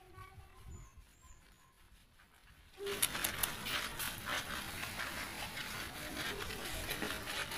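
Water spraying and splattering during a husky's bath, starting suddenly about three seconds in after a near-quiet stretch, a steady hiss full of small splashes.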